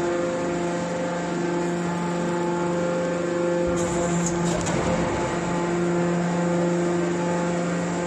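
Hydraulic scrap baler's motor and pump running with a steady pitched hum. Around the middle, low rumble and rougher noise join in as a bale of compressed steel cans is pushed out of the chamber.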